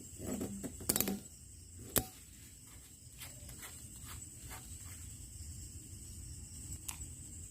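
A handful of sharp knocks and clicks, the loudest about one and two seconds in and fainter ones after, over a steady high-pitched insect-like drone and low background rumble.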